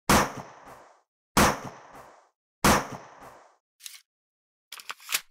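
Three sharp bang sound effects about 1.3 seconds apart, each dying away over about a second with a fainter knock half a second after it. A few quieter clicks follow near the end.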